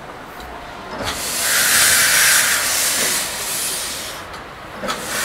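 Narrow-gauge steam locomotive 898.01 starting off: a long hiss of exhausting steam begins about a second in and lasts about three seconds, and a second blast comes near the end, with steam spraying from around the cylinders.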